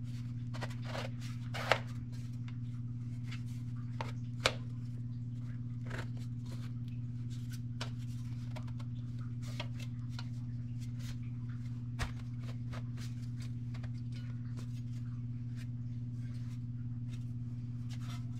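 Galvanized sheet-metal vent pipe fittings being handled, with the swivel joints of an adjustable elbow turned to change its angle: light metallic scraping and clicking, with three sharper clacks. A steady low hum runs underneath.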